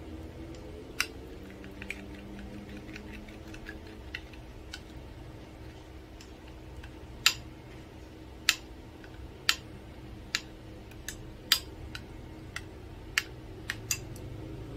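Metal spoon clinking against a glass bowl while stirring a soy-and-chili sauce: sharp, irregular clinks, a few early and then louder and more frequent in the second half. A low steady hum runs underneath.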